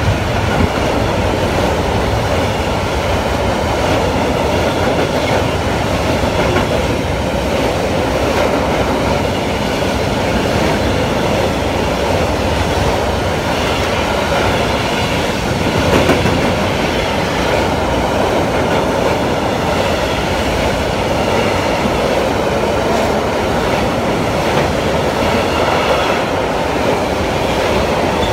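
Freight train of bulk hopper wagons rolling past close by: a steady, loud rumble of steel wheels on rail with faint high wheel squeal, and one louder knock about sixteen seconds in.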